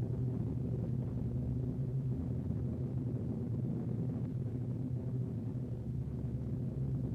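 Steady low drone of piston-engined bomber aircraft in flight, an even hum without breaks.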